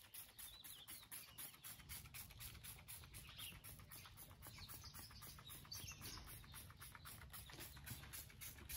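Near silence: faint outdoor background with a few faint bird chirps.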